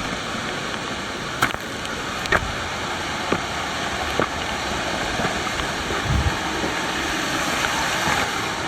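Mountain stream rushing steadily, with four light knocks about a second apart in the first half.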